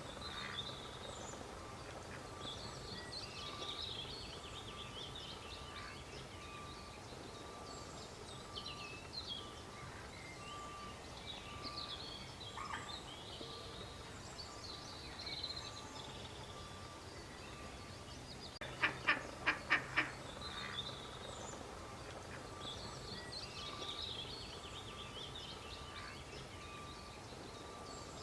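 A duck quacking, a quick run of about six loud quacks about two-thirds of the way through, with small birds chirping high in the background throughout.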